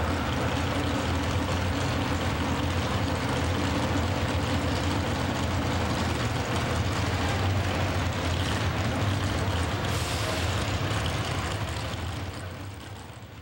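Large engine running steadily, a deep hum under a dense rushing noise, fading out near the end.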